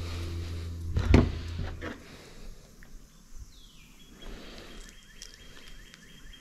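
A steady low hum with one loud thump about a second in, both cutting off about two seconds in. After that comes faint handling of a slimy razor wrasse being cleaned by hand, with a faint high steady tone in the background.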